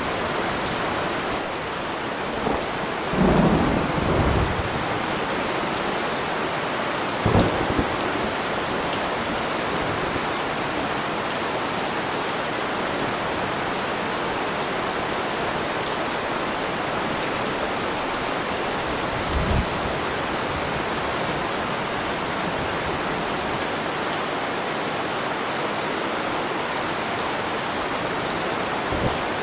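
Steady heavy rain falling, with brief low rumbles of thunder about three seconds in, again near seven seconds and once more near twenty seconds.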